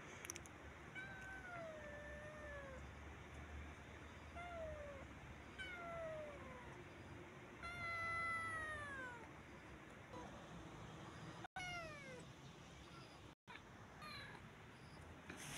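Kitten meowing over and over: about eight high meows that fall in pitch, the longest and loudest about eight seconds in.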